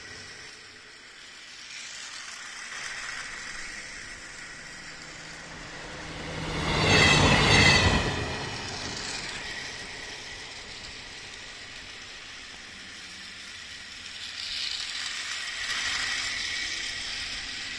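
Battery-powered toy train running on its plastic track, a small motor whine with wheel rattle that swells as the train passes close, loudest about seven seconds in and again briefly near the end.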